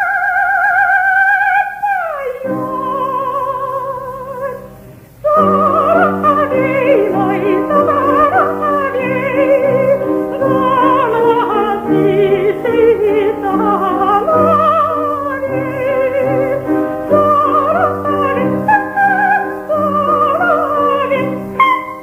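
Coloratura soprano singing a wordless 'ah' vocalise with instrumental accompaniment. A long high note with wide vibrato slides down about two seconds in, and the music briefly dips in level. From about five seconds in come rapid ornamented runs and trills.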